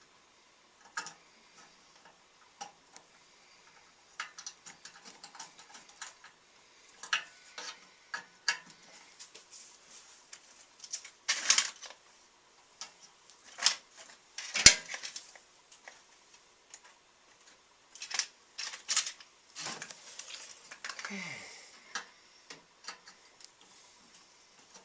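Screws being driven and small metal parts handled while a replacement thermostat is fastened inside a microwave oven: irregular light metallic clicks and clatter, with one sharp click about halfway through.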